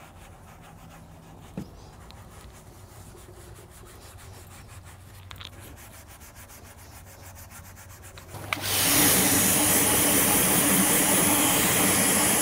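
Sponge applicator scrubbing a car's exhaust tips with polishing soap, a faint rubbing. About eight and a half seconds in, a loud, steady hiss of a water spray starts as the tips are rinsed.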